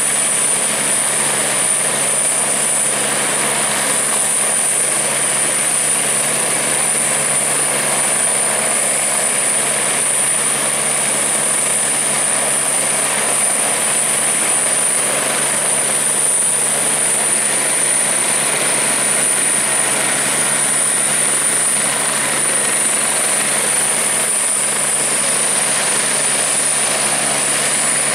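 Airbus H145 helicopter running on the ground, its twin turbine engines and turning main rotor making a steady, unchanging sound with a high-pitched turbine whine over it.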